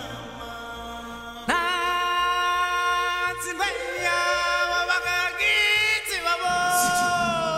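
Singing from a stage musical number, voices gliding into notes and holding them with vibrato. It gets louder about a second and a half in, and a long held note fills the last second.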